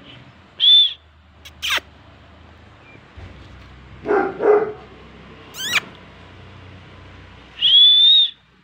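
Young beagle whining and yelping: a short high whine about a second in, a quick falling squeal, two short lower yips around four seconds, and a longer high whine near the end.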